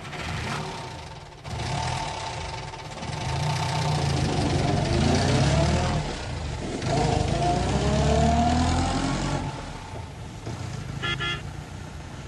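A motor vehicle speeding up twice, its pitch rising each time over a low rumble, with a brief high tone near the end.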